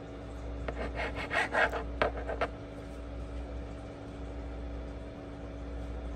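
A kitchen knife cutting through a slice of sandwich bread: a quick run of about ten short strokes between about one and two and a half seconds in.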